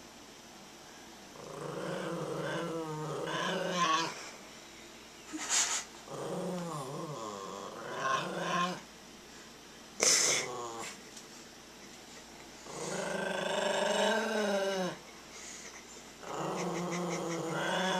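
Small Maltese dog growling in four long spells of a few seconds each, the pitch wavering up and down, with two short sharp sounds between them, about a third and halfway in.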